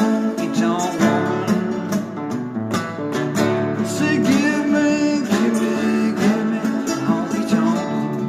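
Acoustic slide guitar playing a blues instrumental passage: plucked notes over a steady rhythm, with notes sliding up and down in pitch.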